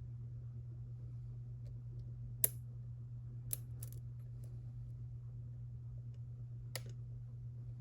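A few sharp, separate metallic clicks of lock picks working inside an EVVA EPS slider lock, the loudest about two and a half seconds in, over a steady low hum.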